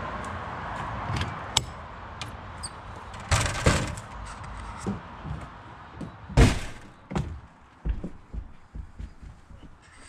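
Motorhome entry door being unlatched with a sharp click and pulled open with a clatter, followed about six seconds in by a heavy thunk, the loudest sound, and then a run of lighter knocks.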